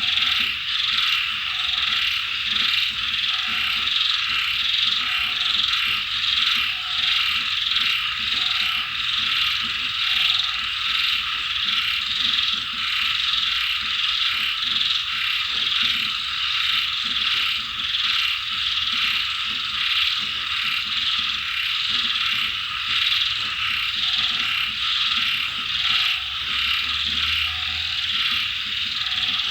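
Dense chorus of frogs croaking, steady and unbroken. A lower frog calls in short notes every second or two, stops for a stretch mid-way and starts again near the end. A faint, high, regularly pulsing insect call sits above it.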